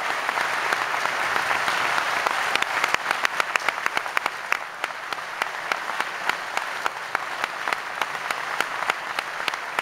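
Audience applauding: a full burst of clapping for the first few seconds that then thins into fewer, more distinct claps.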